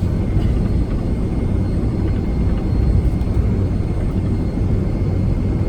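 Boeing 757-200 engine and airframe noise heard inside the passenger cabin: a steady low rumble with a faint high whine.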